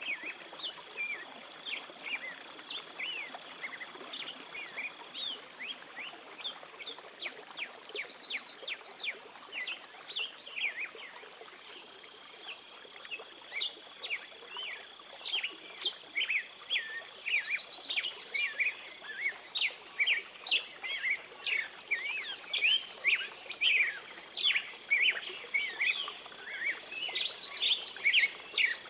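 Songbirds chirping: a dense run of quick rising and falling chirps, with a short trill coming back every few seconds, getting louder in the second half.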